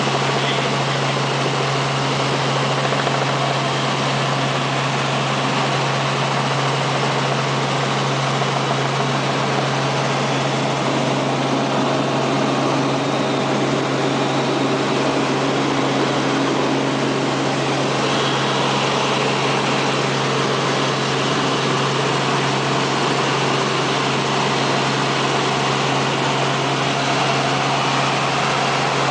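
Helicopter running with a steady engine and rotor drone: a constant low hum over a broad rushing noise.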